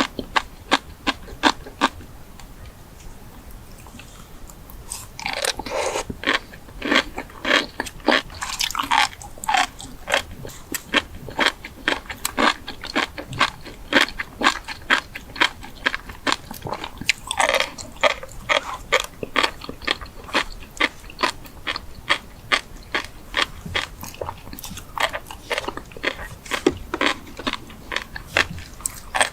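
A person chewing and biting crunchy food: quick crisp crunches at about three a second, pausing for a few seconds shortly after the start, then resuming louder.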